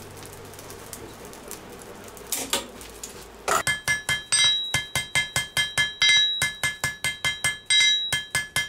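Hand hammer forging red-hot coil-spring steel on an anvil: quick, regular blows, about four or five a second, each with the anvil ringing. They start about three and a half seconds in, after a stretch of faint shop noise.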